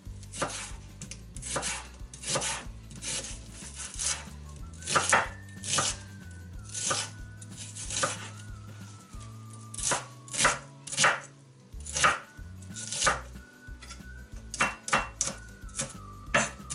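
A chef's knife chopping half an onion on a plastic cutting board: uneven sharp strokes of the blade hitting the board, about one or two a second.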